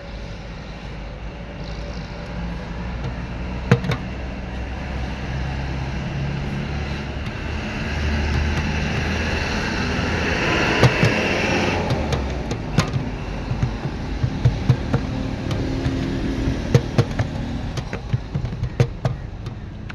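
Street traffic: a vehicle engine hums and swells as it passes, loudest about ten seconds in. In the second half comes a run of sharp taps and slaps.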